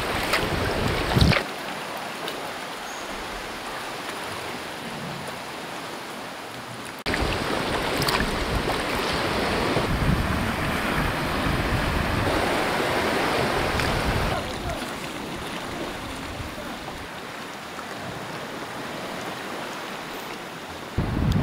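Sea swell washing and foaming over rocks at the foot of sea cliffs, with wind rumbling on the microphone. A kayak paddle splashes in the first second, and the sound changes abruptly about a second in and again about seven seconds in.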